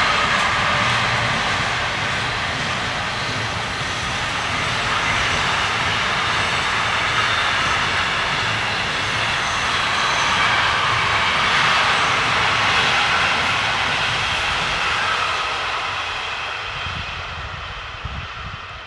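Freight train of pocket wagons carrying truck trailers rolling past, a steady rumble and rush of wheels on rails that fades over the last few seconds as the train moves away.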